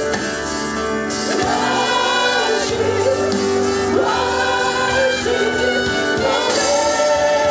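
Gospel worship music: several voices singing long held notes over steady instrumental accompaniment.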